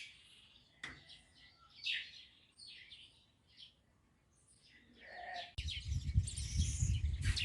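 Birds chirping, many short high calls. About five and a half seconds in, a low rumbling noise cuts in abruptly and stays under the calls.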